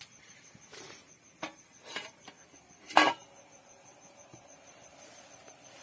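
Perforated aluminium steamer plate being set into a pot of steaming water: a few light metal knocks and a loud clank about three seconds in, followed by a faint ring.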